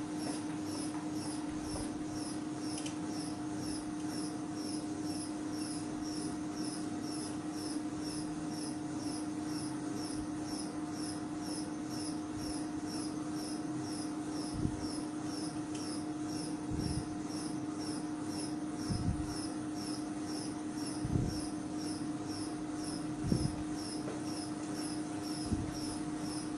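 A materials testing machine loading a panel in four-point bending, running with a steady hum. A faint high chirp repeats about twice a second, and from about halfway on a soft low knock comes every two seconds or so.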